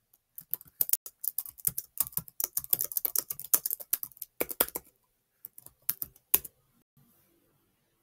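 Typing on a computer keyboard: a quick run of key clicks for several seconds, then a short pause and a few more keystrokes ending with one louder click.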